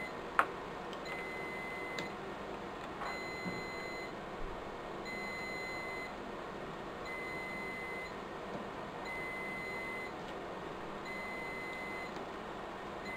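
Electronic alarm beeping steadily, one long, high beep about every second, typical of a UPS sounding its battery alarm while its battery pack is out. A single sharp click comes just after the start.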